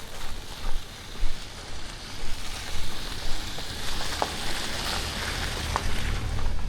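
Steady hiss of rushing water from a waterfall, swelling in the middle, with a few scattered footsteps on the trail.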